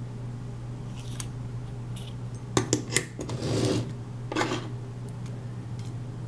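Small metal clicks and scraping from a pin tumbler lock and its tools being handled as the lock is taken apart: three sharp clicks in quick succession a little before halfway, then two brief scrapes.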